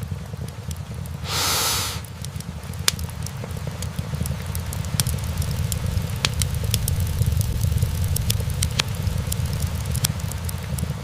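Wood fire burning in a fireplace: a steady low rumble with frequent sharp crackles and pops from the logs. About a second in comes a brief hiss, under a second long.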